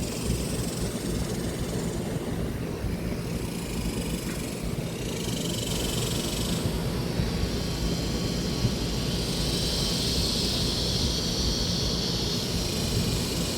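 Outdoor air conditioner and heat pump condensing units running, a steady hum with the whoosh of their condenser fans. A brighter hiss swells in the second half.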